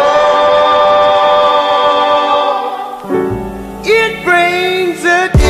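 Background music with singing: one long held sung note, then a bass beat and a gliding vocal line come in about three seconds in, with a heavy bass hit near the end.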